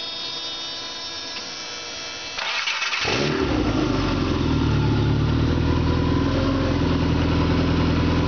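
Subaru EJ22 flat-four engine being started on a run stand: a steady whine, then a brief burst of starter cranking about two and a half seconds in, and the engine catches within a second and settles into a steady, smooth idle.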